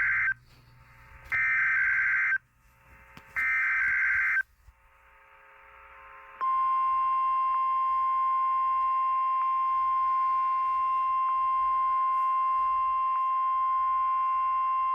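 Emergency Alert System SAME data bursts: three buzzy, screeching digital header bursts about a second long each, then after a short pause the steady NOAA Weather Radio 1050 Hz warning alarm tone held for about nine seconds, signalling the start of a new alert.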